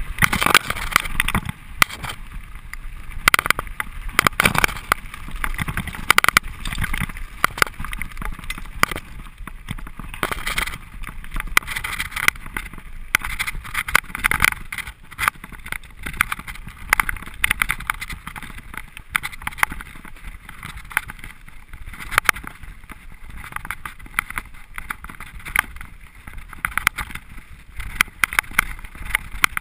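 Mountain bike descending a rough dirt trail: constant rattling and irregular knocks from the bike jolting over bumps, over a steady rush of tyre and wind noise.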